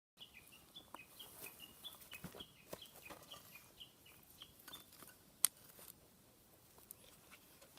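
A bird calling in quick, short, falling notes, about three a second, over scattered crackles and pops; a single sharp pop stands out about five and a half seconds in.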